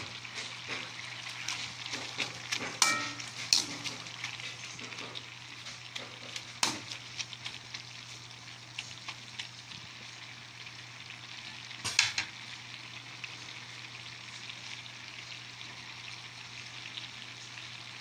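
Sardine broth at a rolling boil in a metal wok, hissing and bubbling steadily under a heap of malabar spinach leaves. A metal ladle stirs and knocks against the wok a few times, loudest about three seconds in, about six and a half seconds in, and about twelve seconds in. A steady low hum runs underneath.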